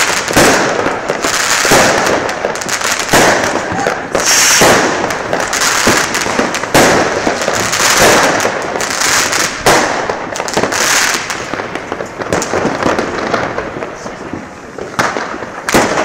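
Fireworks going off in quick succession: a continuous run of bangs and crackling, with a sharp loud bang every second or two, thinning out a little about three-quarters of the way through.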